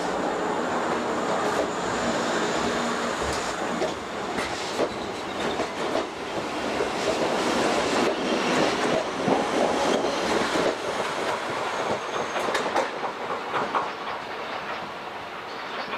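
Electric train moving through the station, wheels clacking over rail joints, the sound easing a little near the end.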